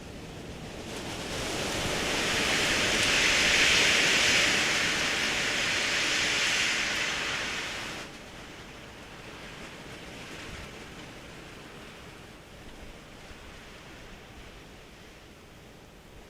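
A gale-force wind gust of about 50 knots rushing, heard through a trail camera's microphone. It builds over a couple of seconds and blows hard for several seconds, then drops suddenly about halfway through to a weaker, steady rush.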